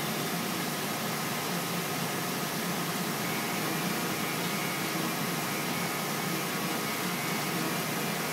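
Willemin Macodel W408B five-axis mill cutting stainless steel under flood coolant. A steady, even hiss of coolant spray and cutting over the running spindle, with no change through the cut.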